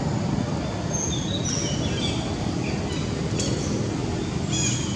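A few short, high bird chirps over a steady outdoor background hiss: a scattered group about a second in and another near the end.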